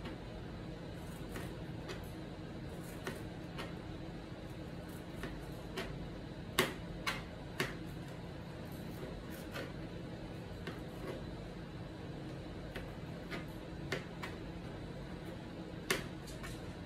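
Kitchen knife slicing a tomato on a plastic cutting board: irregular light clicks as the blade meets the board, with a few sharper taps in quick succession about halfway through and one near the end, over a steady low hum.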